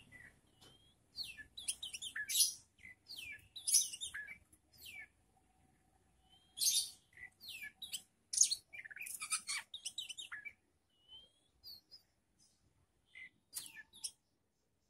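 Songbird song in quick, varied bursts of high chirps, trills and whistled sweeps, thinning to a few scattered calls near the end.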